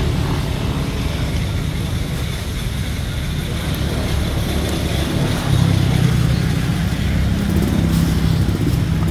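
A motor vehicle's engine running steadily, growing louder about halfway through.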